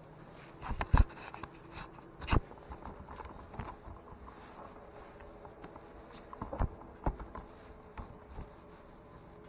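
Scattered sharp knocks and clicks with light rustling between them. The loudest come about a second in and near two and a half seconds, with two more around six and a half and seven seconds.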